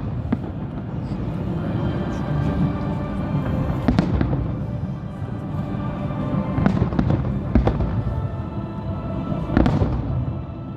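Fireworks bursting, several sharp bangs: one about four seconds in, then a cluster from about seven to ten seconds in. Music plays under them.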